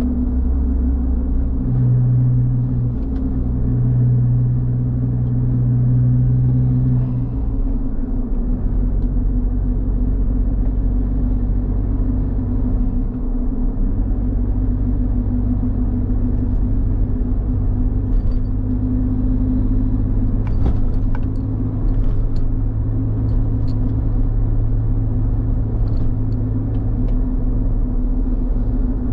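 Suzuki Jimny JB64's turbocharged 660 cc three-cylinder engine running steadily with a low rumble; its note changes pitch about seven seconds in and again a few seconds later.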